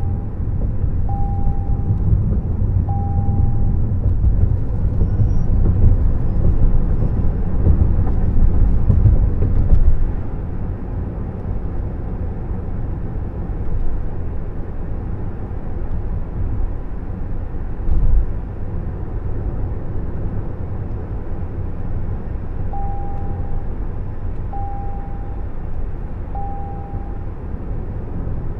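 Road and tyre rumble inside the cabin of a Toyota Prius plug-in hybrid driving on a country road, louder for the first ten seconds, with a low thud about 18 seconds in. The car's warning chime sounds three times near the start and three times again near the end.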